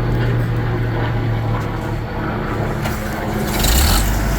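Wood chipper's engine running steadily after being restarted following cleaning and routine maintenance. About three and a half seconds in there is a brief rush of noise and the engine settles to a deeper steady note.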